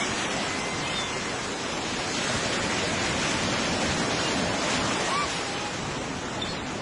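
Steady rushing noise of sea surf, even and unbroken, with a couple of faint short chirps in it.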